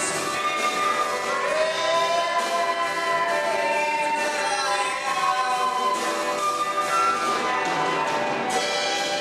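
A small rock band playing live: a flute melody over electric guitar, acoustic guitar, bass and drums.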